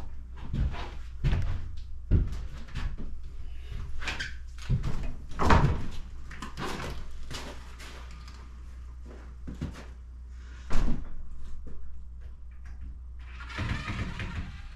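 An old shed door being worked loose and taken off: a run of knocks, bumps and rattles, a sharp bang about eleven seconds in, and a scrape near the end.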